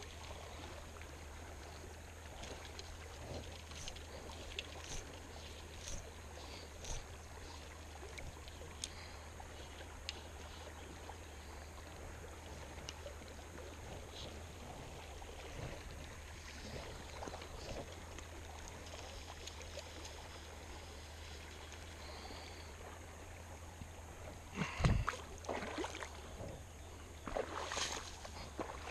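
Shallow creek rushing steadily over riffles, with small scattered ticks. Near the end, louder rustling and steps through tall grass.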